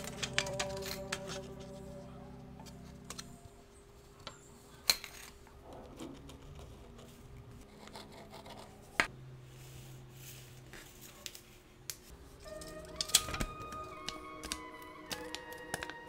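Soft background music with sustained notes that change every few seconds. Scattered sharp clicks and taps sound over it, the loudest about five, nine and thirteen seconds in.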